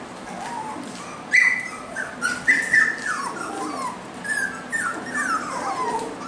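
Young cockapoo puppies yipping and whimpering while they play, a string of short high-pitched squeals that fall in pitch, starting about a second in and coming again and again.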